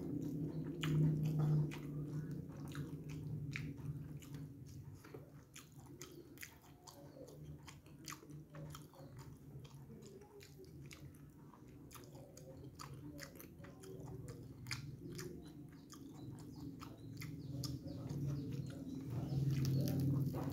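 A person chewing a mouthful of rice and fried fish close to the microphone: wet mouth clicks and smacks many times a second, over a low steady hum.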